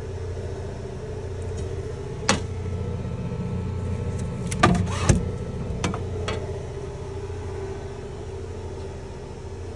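Steady fan hum of a Bambu Lab X1 Carbon 3D printer after a finished print. A few sharp clicks and knocks between about two and six and a half seconds in come from handling the printer's glass door and build plate.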